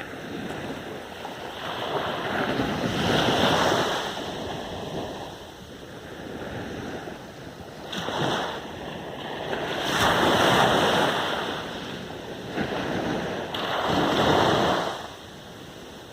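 North Sea surf: waves breaking and washing up the beach, the rush of water swelling and fading about four times, one brief surge in the middle and three longer ones.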